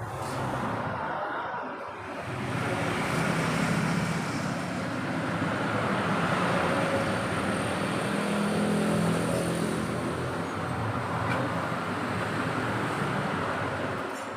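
Steady motor-vehicle engine noise with a road-like hiss, holding at an even level with no clear revving.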